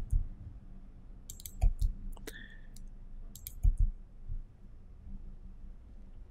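Computer mouse clicking: a few sharp clicks in small clusters, over a faint low hum.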